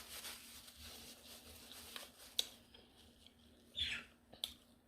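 Quiet eating sounds close to the microphone: soft chewing and mouth noises, with a few sharp clicks.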